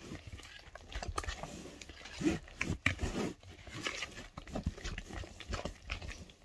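A blue mixing utensil stirring eggs and sugar in a metal mixing bowl: irregular scraping, knocking against the bowl and wet squishing of the mix.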